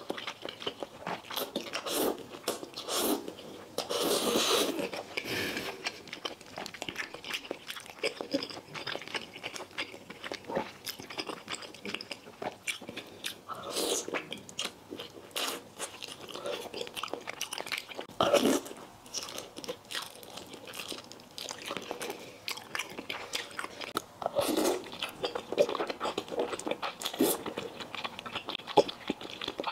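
Close-up eating sounds of a person slurping thick potato noodles and chewing, with wet, clicky mouth noises throughout and a few louder bursts along the way.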